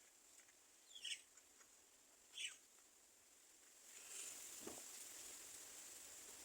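Faint bird calls: two short high chirps, each dropping in pitch, about a second and a half apart. A faint steady hiss rises near the end.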